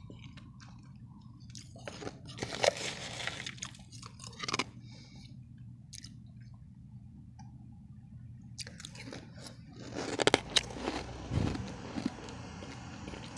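Mouthfuls of refrozen powdery ice crunching as they are bitten and chewed. There is a spell of crunching a couple of seconds in and a louder, denser run from about nine seconds in, over a steady low hum.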